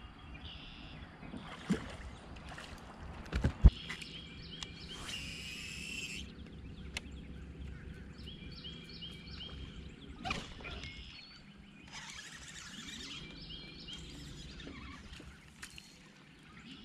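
Open-water lake ambience with birds calling in short repeated notes from the shoreline trees. A few knocks come from the bass boat's deck, the loudest a sharp thump about three and a half seconds in.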